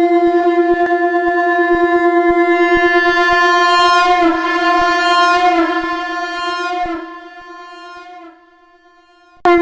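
Shankh (conch shell) blown in one long note near F, with a fluttering, slightly wavering tone. The note sags in pitch midway, fades and stops about eight seconds in. A new blast starts just before the end.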